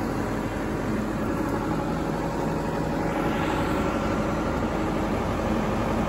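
New Holland 675E backhoe loader's diesel engine running steadily, a loud, even drone.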